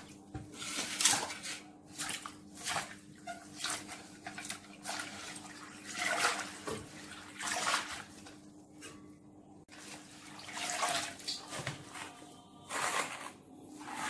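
Water sloshing and splashing in a deep stainless steel bowl as a bunch of small amaranth greens is swished and lifted by hand, in irregular splashes with dripping.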